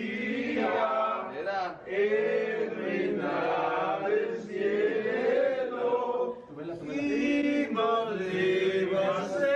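A mixed group of men's and women's voices singing together in unison, in sung phrases with short breaks between them.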